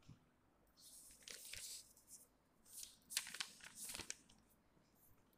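Paper rustling and crinkling as the pages of a printed book are handled and turned, in several short bursts, with a sharp click about four seconds in.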